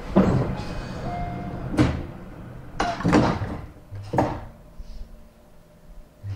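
Sliding doors of a Tobu 50000 series commuter train car at a station stop, heard from inside the car: a series of about five knocks and swishes spread over several seconds, the background growing quieter after the middle.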